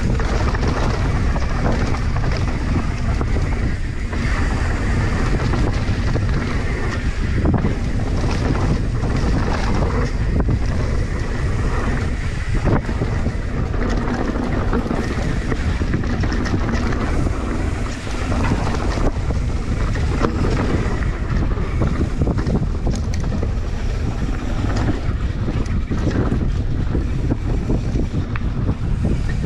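Mountain bike descending a rough dirt-and-rock trail: wind buffets the camera microphone in a steady rush, with frequent knocks and rattles from the bike over the bumps.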